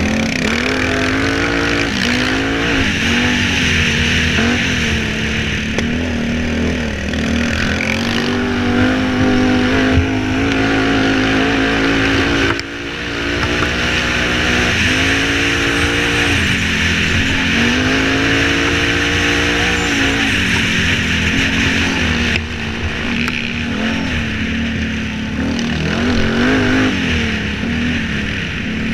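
Sport quad's engine at racing speed, heard from on board, its revs climbing and dropping again and again with throttle and gear changes. A steady rushing hiss runs underneath.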